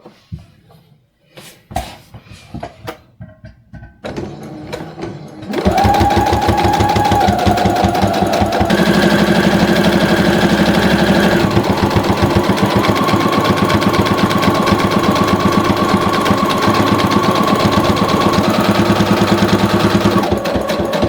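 A few light clicks and taps, then about five seconds in a Brother Project Runway CE1100 sewing machine starts and runs steadily at a fast stitching rhythm. It is sewing a straight diagonal line through layered fabric and cotton batting, and eases briefly near the end.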